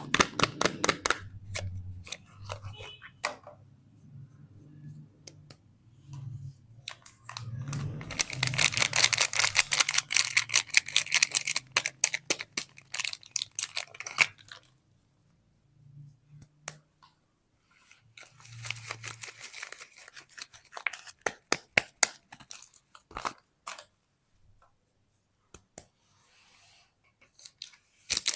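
Soap packaging being unwrapped by hand close to the microphone: crinkling and tearing of the wrapper in separate bursts with short pauses, the longest and loudest stretch about a third of the way in.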